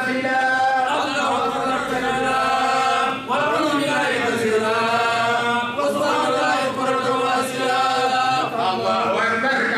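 A voice chanting in long held phrases whose pitch slides and wavers, with short breaks for breath about three and six seconds in.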